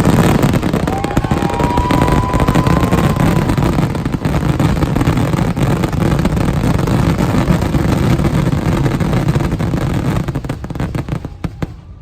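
Fireworks finale: a dense, continuous barrage of rapid bursts and crackles with a deep rumble, and a short whistle about a second in. The barrage thins and stops just before the end.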